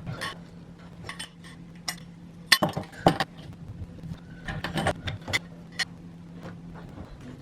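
Scattered light clinks and knocks over a faint, steady low hum, the sharpest two about two and a half and three seconds in.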